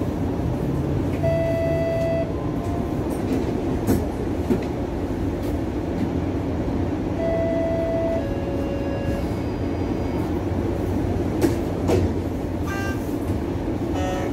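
Interior of a Bombardier Flexity Outlook low-floor streetcar running, a steady low rumble of the car on the rails. Short steady tones about a second long sound twice, and there are a few sharp knocks and rattles.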